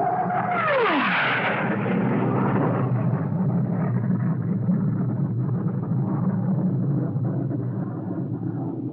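Animated sci-fi sound effect: a whine that drops steeply in pitch about a second in, giving way to a long, steady rumbling rush, like a craft's engine or a blast, that slowly fades toward the end.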